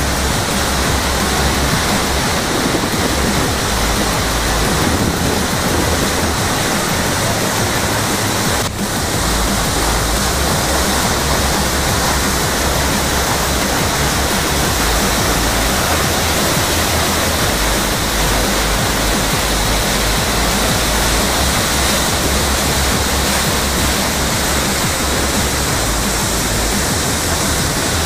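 Steady roar of a large waterfall, heavy water plunging into a rocky gorge.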